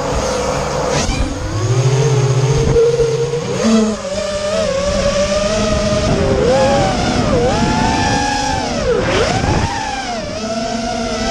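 Racing quadcopter's electric motors whining, heard close from the drone's onboard camera, the pitch rising and falling as the throttle changes, with several sharp dips and swoops in the second half.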